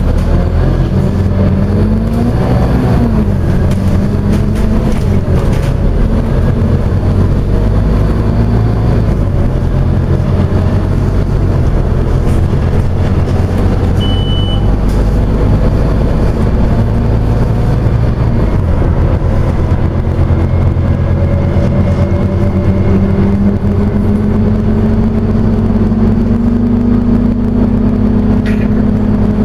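Scania OmniCity bus's diesel engine, heard from inside the passenger saloon as the bus drives along. The engine pitch rises and drops back about two seconds in, runs fairly steady through the middle, then climbs gradually over the last ten seconds as the bus accelerates. A short high beep sounds about halfway through.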